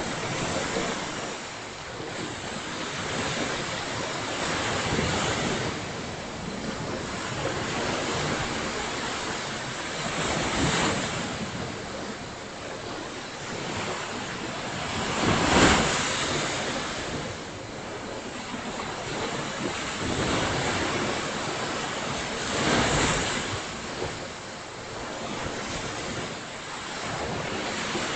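Ocean surf breaking on a beach, a steady wash that swells and ebbs every few seconds, with the biggest wave about fifteen seconds in. Wind is rumbling on the microphone.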